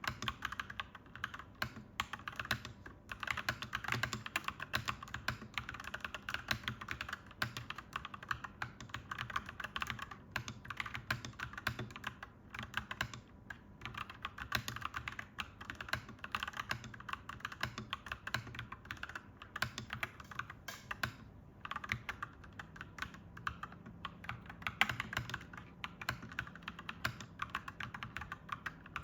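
Clacky mechanical keyboard being typed on: fast, continuous key clicks with a few brief pauses.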